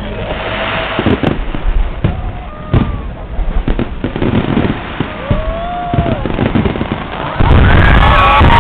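Fireworks display: aerial shells bursting in sharp cracks and booms, one after another. Near the end a dense barrage sets in, loud and unbroken.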